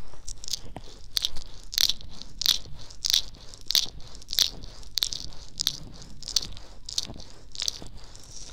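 Fingertips stroking the ears of a binaural dummy-ear microphone, close-up, giving a run of short crisp crackles at about three a second.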